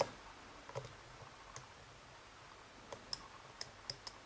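Faint, irregular small metallic clicks of a lock pick working the pins inside a Bricard Mistral S pin-tumbler cylinder during single-pin picking.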